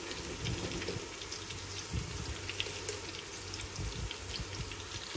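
Sliced onions and whole garam masala frying in oil in an open pan: a soft, steady sizzle with scattered small pops and crackles.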